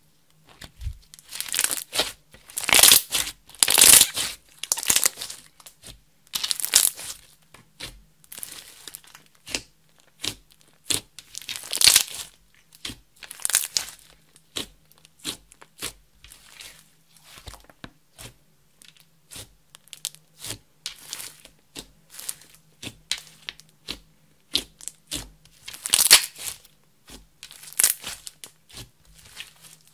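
Hands squeezing, stretching and pressing a large lump of glossy slime, making a string of sticky clicks, pops and crackles that swell louder in a few clusters as the slime is folded and worked.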